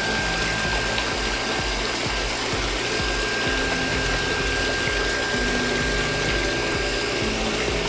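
Homemade mini water pump driven by a small battery-powered electric motor, running steadily with a thin high tone, while its stream of water splashes into a puddle.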